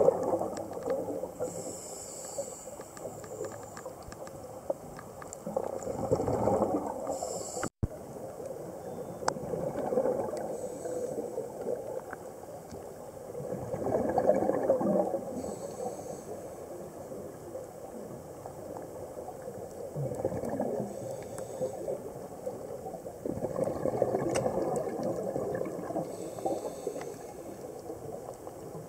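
Scuba regulator breathing underwater: a short hiss on each inhale, then a gurgling rush of exhaled bubbles, repeating every five seconds or so.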